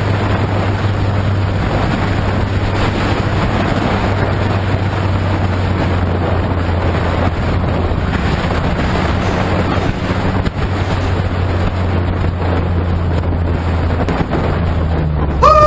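Motorcycle engine running at steady highway speed under heavy wind rush on a helmet camera, its note dipping slightly near the end. A short, loud pitched sound cuts in at the very end.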